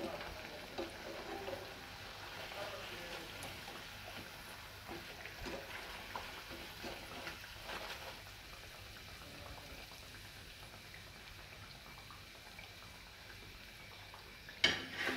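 Hot oil sizzling and crackling around aloo pakoras frying in a pan, a dense patter of small pops that gives way to quieter room sound about halfway through. A single sharp knock near the end.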